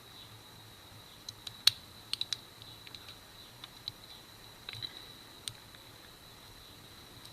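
Scattered small, sharp clicks and taps, with a quick cluster about one and a half to two and a half seconds in, as new scales are handled and lined up onto the rivets of a Victorinox Swiss Army knife.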